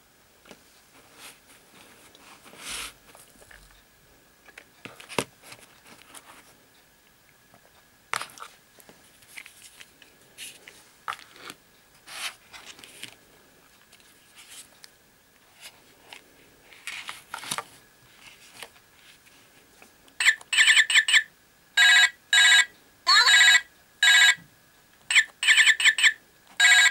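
Plastic toy phones handled, with scattered clicks and knocks, and buttons pressed. About twenty seconds in, a toy telephone starts a loud electronic ringtone in short repeated bursts of warbling tones.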